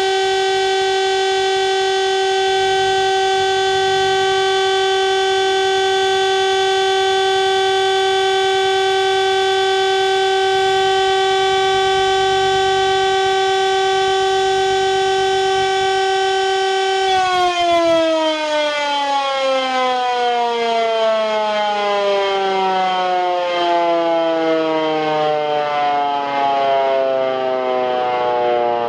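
Electric civil defence siren sounding a steady tone at full speed, the German all-clear signal. About 17 seconds in it is switched off and winds down, its pitch falling slowly.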